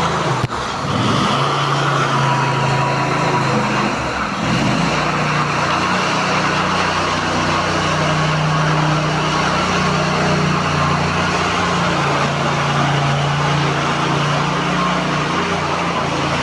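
Large engine-driven machine running steadily with a constant low hum and broad mechanical noise, as from screed-pumping equipment on a floor-screed job. A sharp click sounds about half a second in.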